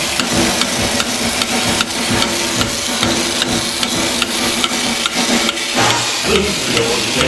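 Battery-operated tin toy spaceship running: its small electric motor and gears clatter with a rapid, evenly spaced clicking, the tin body rattling as it drives and turns its radar.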